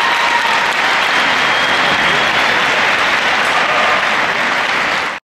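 Audience applauding steadily, then cut off abruptly about five seconds in.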